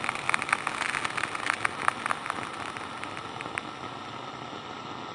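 Walkie-talkie radio static: a steady hiss with a burst of irregular crackling that dies away after about three and a half seconds.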